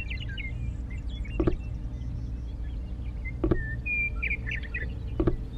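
Small birds chirping over a steady low rumble, with four brief knocks spaced about one and a half to two seconds apart, from miniature clay brick wall pieces being set down on sand.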